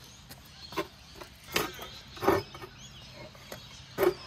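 Heavy portable vehicle-weighing plates being set down and shifted on asphalt: four sharp knocks, the loudest about halfway through. Faint bird chirps can be heard behind them.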